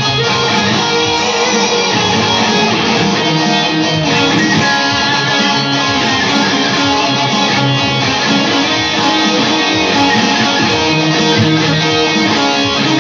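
Squier Stratocaster-style electric guitar played through a Marshall JVM410H amplifier, a rock instrumental piece with bass-heavy accompaniment that keeps going without a break.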